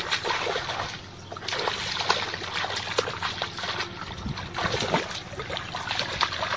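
Hands groping and sloshing in shallow muddy water, with irregular small splashes and trickles, and a short lull about a second in.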